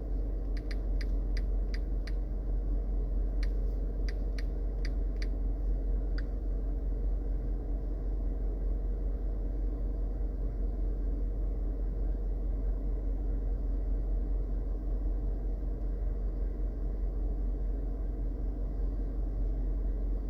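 Steady low rumble with a constant low hum. About a dozen light clicks fall in the first six seconds, several in quick runs about three a second.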